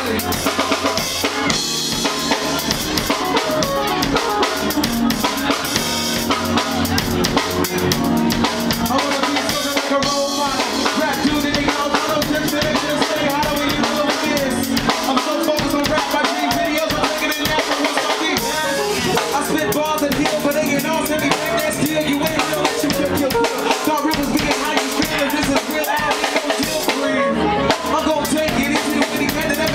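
A live hip hop band playing loudly, with a full drum kit of kick, snare and rimshots keeping a steady beat.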